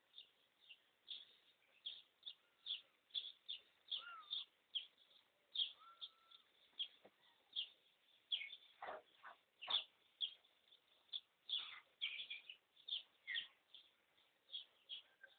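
Small birds chirping in short, high calls, a few a second, with two soft knocks about nine seconds in.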